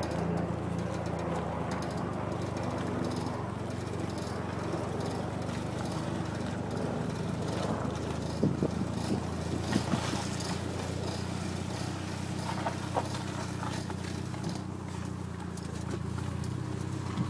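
Toyota MR2 with its engine running steadily, with a few short knocks about eight to ten seconds in: the unidentified noise the owner hears from the driver's front wheel when turning left.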